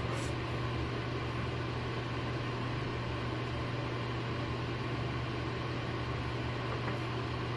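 Steady low hum with an even hiss, unchanging throughout: room background noise.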